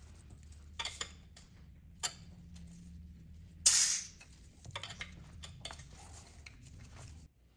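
Metal fittings of a shop compressed-air hose clicking as it is coupled to the cylinder adapter, with one short, loud hiss of compressed air about three and a half seconds in.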